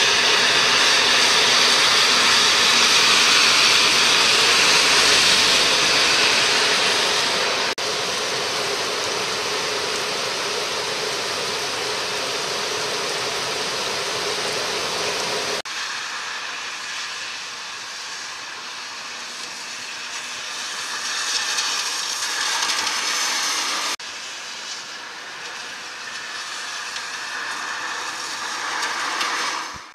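Heavy sudden downpour hissing steadily, mixed with the rush of the swollen, muddy river pouring over a weir. The sound breaks off and comes back quieter about 8 and 16 seconds in.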